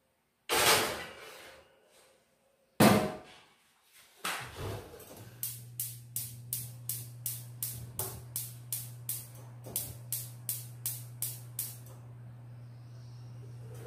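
A metal roasting tray knocks twice against the oven as it goes in. Then the oven starts a steady low hum, and a regular run of clicks, about two and a half a second, goes on for several seconds before stopping.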